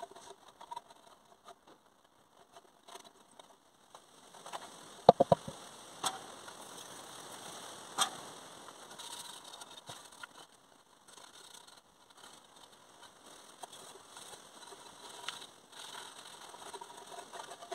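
Engine parts being handled and wiped down with a shop rag: a quick run of three sharp knocks about five seconds in, single clicks near six and eight seconds, and faint scratchy rubbing between them.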